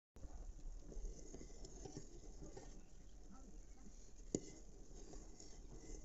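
A pot of kadhi boiling over a wood fire: a faint, busy patter of bubbling and crackling, with one sharp click about four seconds in.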